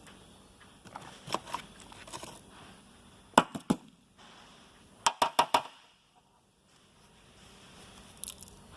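Handling noises: scattered sharp clicks and knocks of tools and parts being moved, including a quick run of four clicks about five seconds in. Between them there are quiet stretches.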